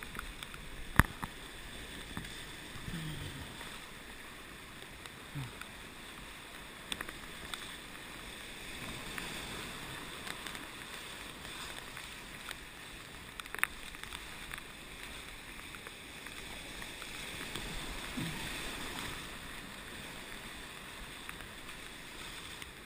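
Whitewater rapids rushing and splashing steadily around an inflatable raft as it is paddled through, with a few sharp knocks, the loudest about a second in.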